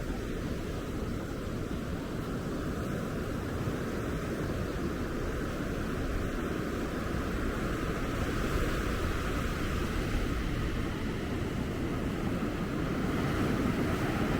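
Ocean surf breaking and washing on a beach: a continuous rushing noise, heaviest in the low end, growing slightly louder near the end.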